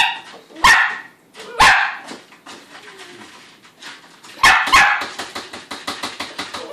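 Shetland Sheltie puppy barking for her food at feeding time: sharp, high barks, three in the first two seconds and two more close together past the middle.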